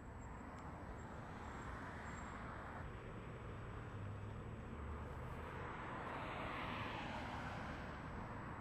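A passing vehicle: a steady noise that slowly swells to its loudest about seven seconds in, then begins to ease off.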